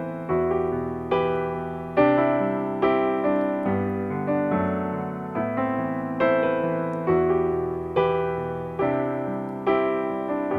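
Piano playing a slow instrumental passage between sung lines: chords struck about once a second, each dying away before the next.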